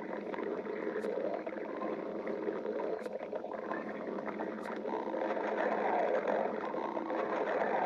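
A person's stomach growling: a continuous gurgling rumble that grows a little louder in the second half, with a few faint clicks.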